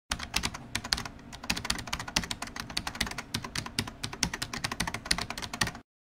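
Fast typing on a computer keyboard: a quick, uneven run of keystroke clicks that stops abruptly near the end.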